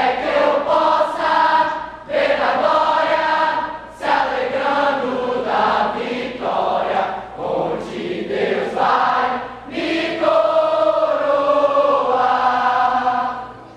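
Youth choir singing together in phrases with short breaks between them; the singing stops near the end.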